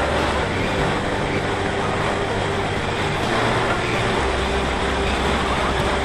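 Wind rushing over the microphone of a camera mounted on a Parrot Disco fixed-wing drone in flight, a loud steady noise with a low hum under it. The low hum drops out about half a second in and comes back a little after four seconds.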